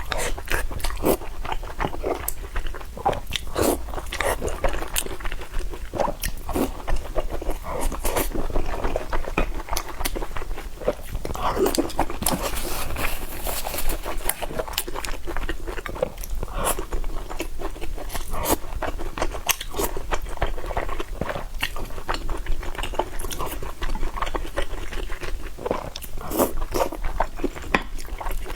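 A person chewing and biting food close to the microphone, in a dense, irregular run of short mouth and teeth clicks.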